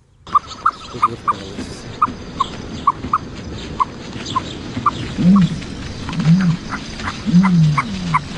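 Animal calls: a steady run of short high squeaks, about two or three a second, joined in the second half by three lower calls that rise and fall in pitch.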